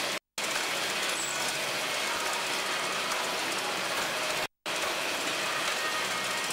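Spaghetti-packaging line running: the rotary folding carousel and slat conveyor make a steady, dense mechanical noise. The sound cuts out completely for a moment twice, just after the start and about four and a half seconds in.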